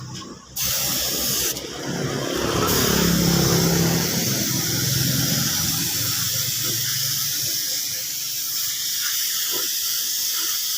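Paint being sprayed onto a motorcycle fuel tank: a steady spraying hiss that starts about half a second in, with a low hum underneath.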